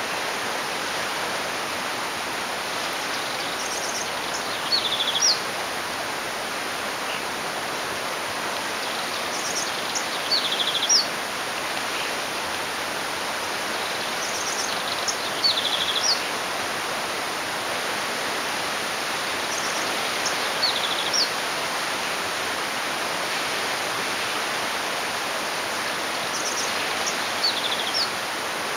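A small songbird sings one short, high phrase five times, about every five to six seconds: a quick trill, a few rising notes, then a lower buzzy trill. Under it runs a steady rushing noise.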